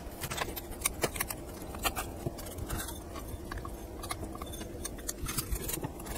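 A small plastic spatula spreading glue over a metal hard-disk platter and the back of a sandpaper sheet: soft scraping with many short sticky ticks and clicks.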